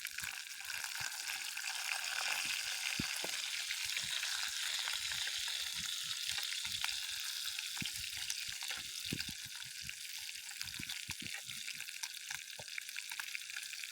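Meat roasting over bonfire embers, sizzling steadily with many small crackles and pops.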